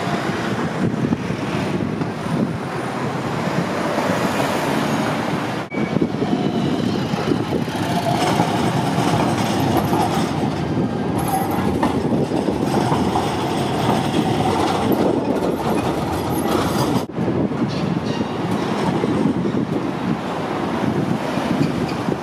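Trams passing close on a city street: a steady rumble of steel wheels on rail and running gear, with a faint whine around the middle. The sound changes abruptly twice as one tram pass gives way to the next.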